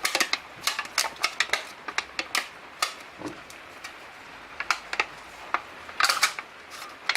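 Irregular sharp clicks and taps, a few a second, of a tool working against an aluminium can during soldering.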